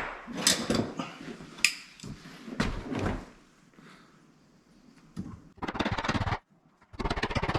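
Knocks and thuds of a door and its frame being handled, followed near the end by two short, rough scraping or grinding noises of under a second each.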